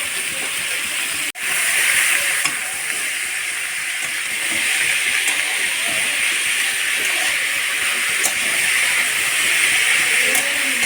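Vegetables frying in a hot pan: a steady sizzle, with a brief break about a second in.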